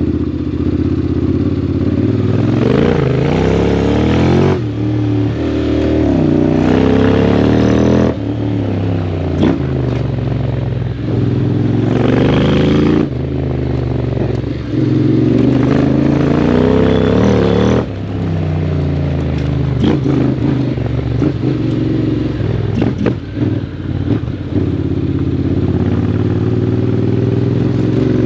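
Honda X-ADV 750's parallel-twin engine through an Akrapovic exhaust, accelerating hard several times. Each time the pitch climbs and then drops off abruptly as the throttle closes, about four times in the first eighteen seconds. After that it runs with lighter, varying throttle.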